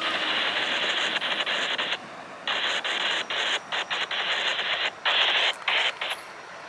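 Static hiss from a railroad radio scanner with the squelch open. From about two seconds in it cuts in and out in short bursts.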